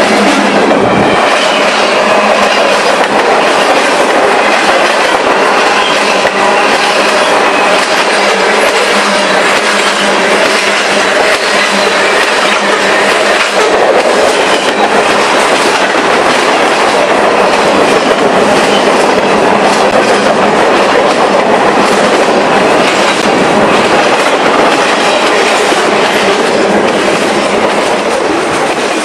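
Freight cars of a Union Pacific manifest train rolling past close by, a steady loud rush of steel wheels on rail with clickety-clack over the rail joints.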